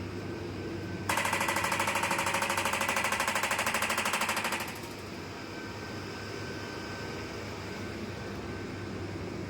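Electromagnetic pelvic floor chair pulsing its stimulation coil: a fast, even train of clicks starts about a second in and stops after about three and a half seconds, over a steady low hum.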